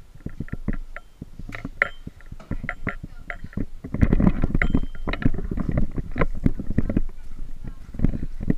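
Bumps, knocks and rustling of a carried action camera, with a loud low rumble from about four seconds in.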